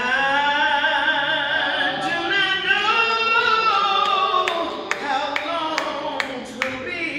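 A woman singing solo into a microphone, holding long wavering notes with vibrato, with a few sharp claps in the second half.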